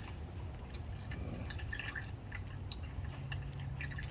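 50-50 antifreeze pouring from a jug into a car radiator's filler neck, gurgling with irregular drips and splashes as the radiator nears full and starts to back up.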